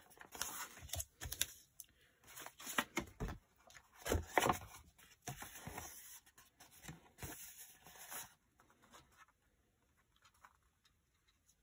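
Wide decorative tape peeled up from paper, with sheets of paper rustling and sliding over a cutting mat in irregular scrapes and crackles. It goes much quieter over the last few seconds.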